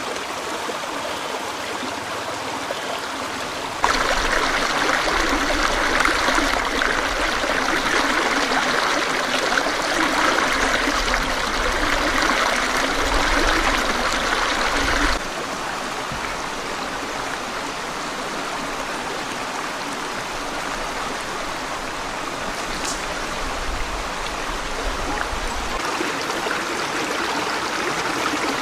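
Forest stream water running steadily. It gets abruptly louder about four seconds in and drops back just as suddenly about eleven seconds later.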